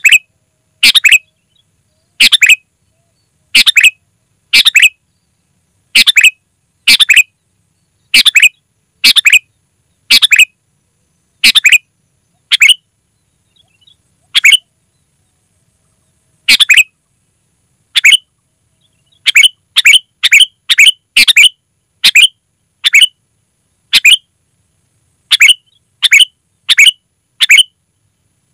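Sooty-headed bulbul (kutilang) calling: short, loud, clear notes repeated about once a second, with a two-second pause midway and a quicker run of calls in the latter part.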